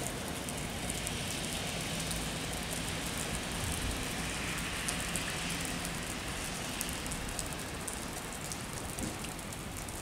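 Steady rain falling, a continuous hiss with many tiny drop ticks scattered through it.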